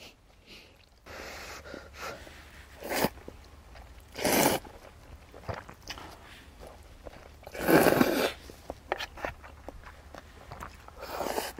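A person eating noodle soup and gimbap: quiet chewing, broken by a few short, louder noisy bursts. The loudest burst comes about eight seconds in.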